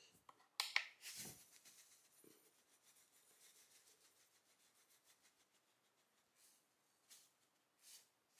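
Dry cream of rice grains trickling from a cardboard box into a ceramic bowl: a few short rustles and taps in the first second or so from handling the box, then a very faint pour that is close to silence.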